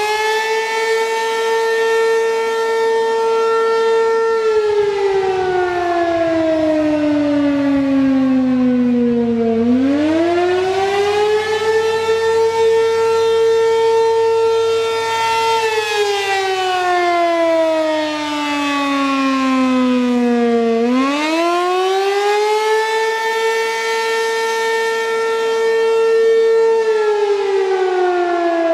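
American Signal RM-127 outdoor warning siren sounding the attack signal, a slow wail. Its tone climbs over about two seconds, holds for about four, then slides down over about five, and the cycle repeats about every eleven seconds.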